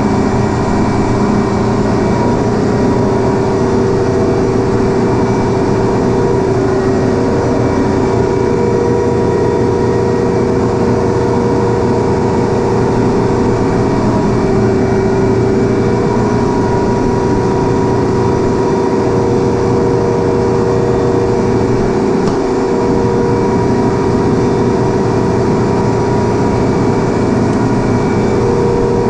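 Vilter 440-series four-cylinder reciprocating ammonia compressor running steadily: a loud, even machine hum with constant tones.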